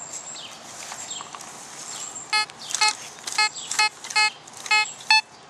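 Fisher F44 metal detector's speaker sounding repeated short target beeps, all at the same pitch, about two a second, starting about two seconds in as the coil sweeps back and forth over a nickel.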